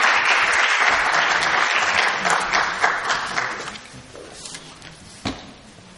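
Audience applauding, the clapping dying away about four seconds in; a single knock follows near the end.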